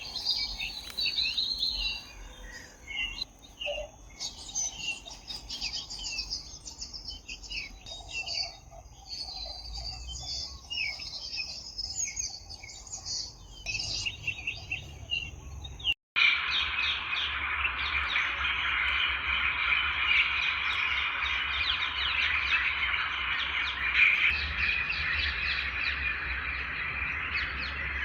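Songbirds chirping and calling, with a steady high tone beneath. After an abrupt cut about halfway, a dense, continuous chorus of chattering birds follows.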